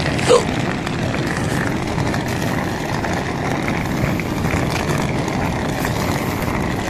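Steady road-vehicle noise, engines and traffic, with a brief falling squeak just after the start.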